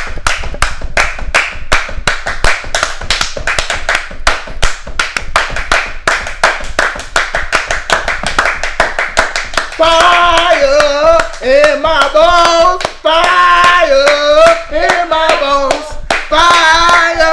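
Fast, steady hand clapping keeping an even beat, as in a church praise break. About ten seconds in, a voice joins with long, wavering sung notes over the clapping.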